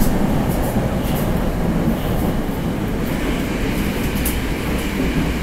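Moscow metro 81-765/766/767 "Moskva" train running through a tunnel, heard from inside the passenger car: a steady rolling rumble with a few light clicks.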